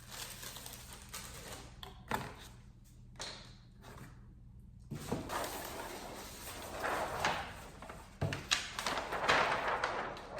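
A package being handled and opened: a few knocks, then stretches of rustling packaging, mostly in the second half.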